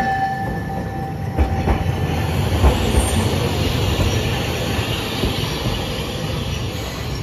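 Hiroshima Electric Railway 700-series tram passing close by on street track. A high steady wheel squeal fades out about two seconds in. Several heavy thumps follow as the wheels cross rail joints, and then a steady running rumble.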